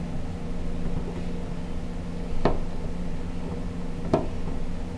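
Two sharp little clicks, about two and a half and four seconds in, as a screwdriver fastens wire ring terminals onto a panel's ground bus bar, over a steady low hum.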